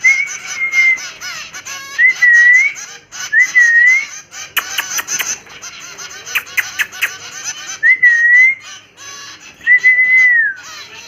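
A person whistling, about five clear notes that each rise and fall, the last one falling away, calling tame cockatiels. Two quick runs of sharp clicks come in the middle, over steady high-pitched chirping of small cage birds.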